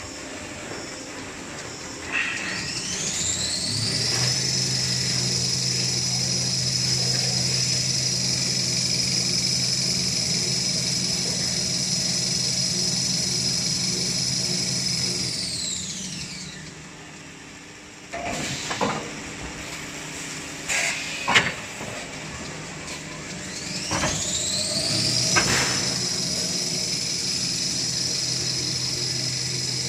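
Motor on a toilet paper production line spinning up with a rising whine, running at a steady high whine over a low hum, then winding down. After a few sharp clicks and knocks it spins up again and runs steadily.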